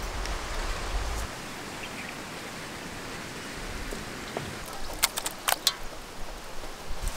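Outdoor ambience of a steady hiss, with wind rumbling on the microphone for the first second or so. A little past the middle comes a quick run of sharp clicks and taps from fish pieces being handled in a steel bowl.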